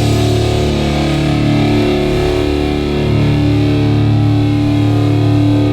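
Live hardcore band's distorted electric guitars holding sustained, ringing chords, without vocals.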